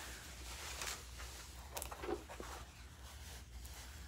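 A rolled diamond-painting canvas with a plastic film cover being unrolled by hand: the plastic and canvas rustle in a few short bursts over a low steady hum.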